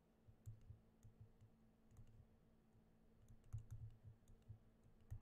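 Faint, irregular taps and clicks of a stylus writing on a tablet screen, over a faint steady hum.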